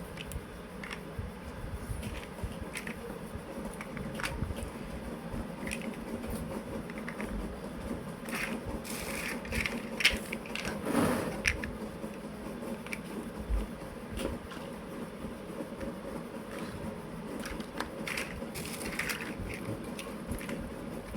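Plastic building blocks being handled and pressed together: scattered small clicks and rattles, with a sharper knock and a louder clatter about ten seconds in.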